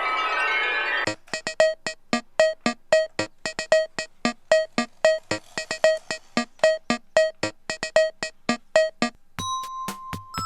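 Electronic background music: a sustained synthesizer chord, then a steady beat of short pitched notes about four a second, and a chime-like keyboard melody near the end.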